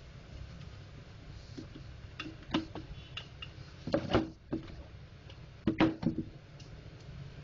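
Plastic housing of a laser printer imaging drum unit knocking and clattering against a table as it is handled and set down: a few light clicks about two seconds in, then two louder clatters around four and six seconds in, over a steady low hum.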